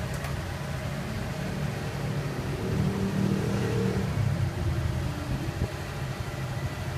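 Scooter engine running steadily, its pitch and loudness rising briefly from about two and a half to four seconds in, as in a light rev.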